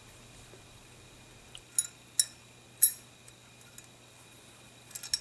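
Small metal parts clicking against a shotgun's steel receiver as the top latch and hammer are fitted in: three sharp clicks a little under two seconds in, then a quick cluster of clicks near the end.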